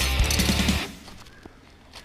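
Background rock music with guitar and drums and a steady beat, fading out under a second in and leaving a short quiet gap.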